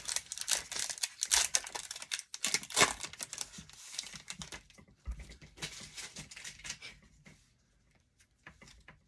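Foil wrapper of an Upper Deck Series One hockey card pack being torn open and crinkled as the cards are pulled out. The crackling dies down about seven seconds in, leaving a few faint ticks near the end.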